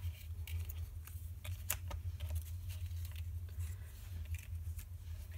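Paper ephemera die-cuts being handled and laid down on cardstock: scattered light ticks and rustles of paper, over a steady low hum.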